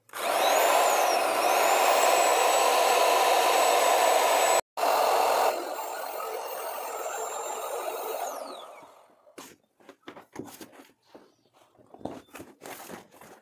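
Electric air pump running at full blast as it inflates a vinyl inflatable chair, its motor whine rising as it spins up. The air noise briefly cuts out and then runs on more quietly before the motor winds down with a falling whine. Scattered light clicks and rustles follow.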